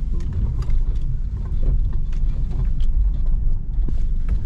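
Car driving slowly over a rough, rocky dirt track: a steady low rumble with scattered knocks and clicks from the tyres and suspension on the broken surface.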